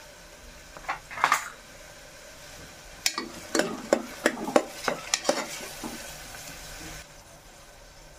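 Chopped onions sizzling in oil in an aluminium pressure cooker while a metal spoon stirs them, scraping and knocking against the pot. The strokes come a few about a second in and then thickly between about three and five and a half seconds in.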